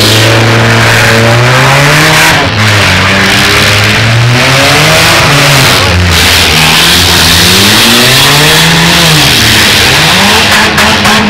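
Several demolition derby cars' engines running loud at once, revving up and falling off again in overlapping waves as the cars drive and push against each other on the dirt.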